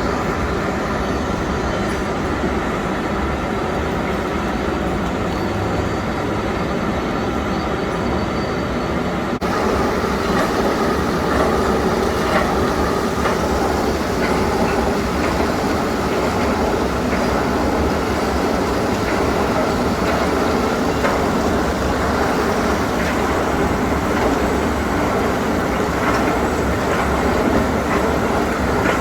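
KU 300/23 bucket-wheel excavator working, a steady heavy mechanical running noise with metallic rattling and clanking. About nine seconds in the sound changes abruptly and becomes slightly louder, with more high-pitched rattle and scattered knocks.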